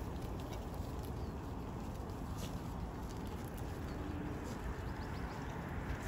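Outdoor ambience of a goat herd grazing on dry straw: a steady low rumble with faint scattered rustles and clicks from the animals moving and feeding.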